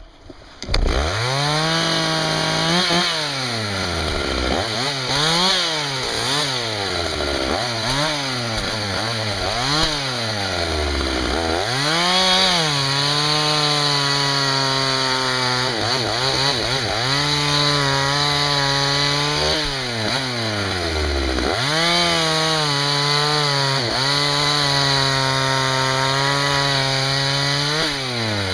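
Husqvarna 61 two-stroke chainsaw starting up about a second in. It is revved repeatedly in quick rises and falls, then held at steady high revs for several seconds at a time while cutting firewood, dropping back between cuts.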